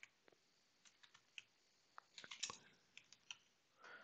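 Faint computer keyboard typing: scattered single keystrokes, with a quick run of keys about two and a half seconds in.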